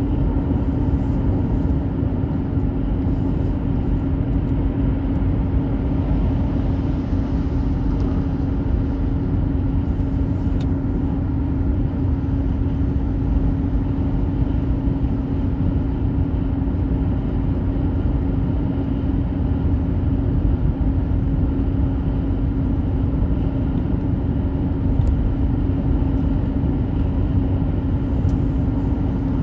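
Car driving at a steady speed: continuous road and engine rumble with a steady low drone.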